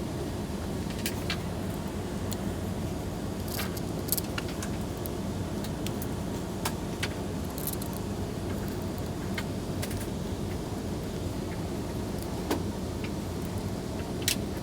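Scattered small clicks and rattles of wires and plastic connectors being handled and plugged in, over a steady low hum.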